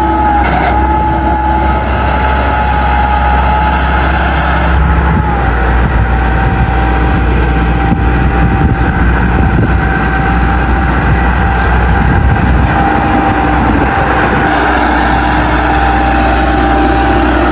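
Millat (Massey Ferguson) farm tractor's diesel engine running steadily as the tractor drives across loose sand, a deep drone with a thin steady whine above it.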